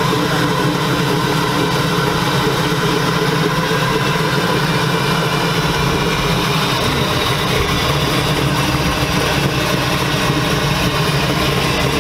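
Car engine idling steadily, with a deeper low note coming in about seven and a half seconds in.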